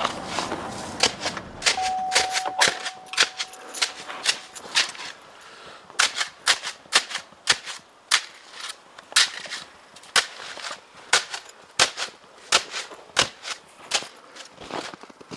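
Footsteps crunching in cold, dry snow, a sharp crunch two or three times a second in a steady walking rhythm.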